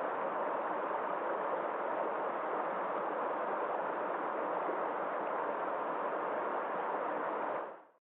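Mountain stream rushing and splashing over boulders, a steady even rush of water that fades out near the end.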